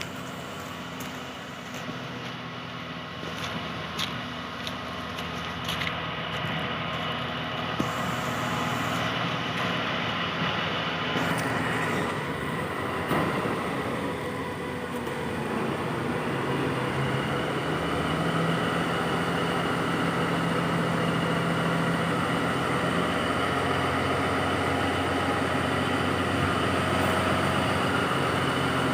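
Diesel engine of an INKA CC 300 diesel-hydraulic locomotive running with a steady note, growing gradually louder over the first half and then holding level.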